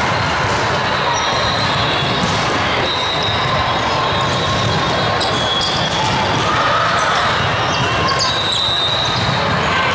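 Steady din of a large hall during a volleyball tournament: volleyballs being hit and bouncing on many courts, with scattered knocks and a mix of voices, echoing in the big room.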